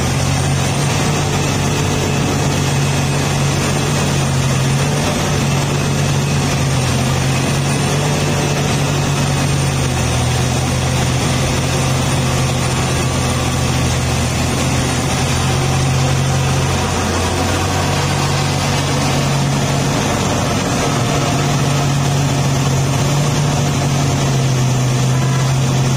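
Liebherr R984C hydraulic mining excavator's diesel engine running under working load while the machine digs and lifts a full bucket. It is a steady, loud low engine drone over broad mechanical noise, with small shifts in its note.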